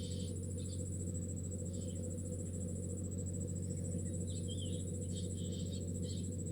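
Insects, likely crickets, trill steadily in a fast high pulse, with a second high insect buzz switching on and off. Short bird chirps come and go several times, over a steady low hum.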